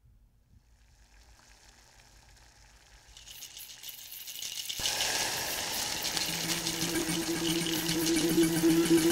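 Soundtrack effect building tension: a hissing noise swells from near silence, jumps much louder about five seconds in into a dense mass of fine clicks, and a steady low hum joins about six seconds in.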